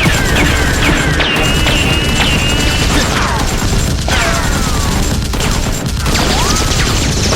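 Loud, continuous barrage of action sound effects, rapid gunfire-like cracks and crashes, with repeated falling whistle-like glides, mixed over background music.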